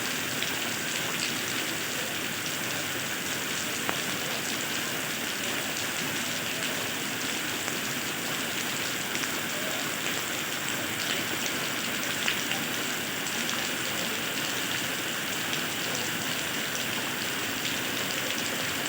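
Steady rain falling: an even hiss with scattered sharper ticks of drops striking nearby surfaces.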